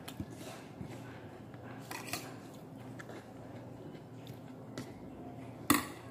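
Fingers picking food from a plate, with faint taps and small clinks against the plate and one sharper clink near the end.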